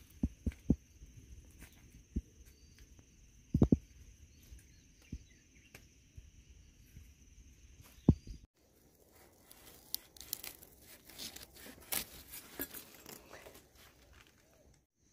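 Scattered soft thumps over a steady, high-pitched insect buzz. After a cut about eight seconds in, a dense crackling rustle.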